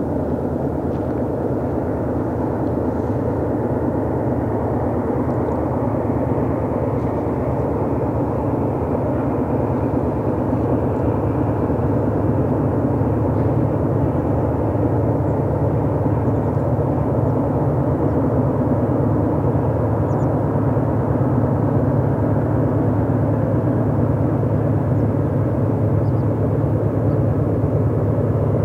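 GE C44-9W diesel-electric locomotives working under power at the head of a double-stack freight train: a steady low engine rumble that slowly grows louder as the train approaches.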